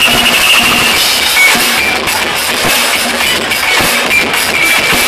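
Live rock band playing loudly: electric guitar over a drum kit, with drum hits throughout.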